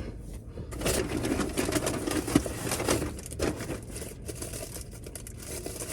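Food packaging being handled: crinkling and rustling, with many small clicks and taps.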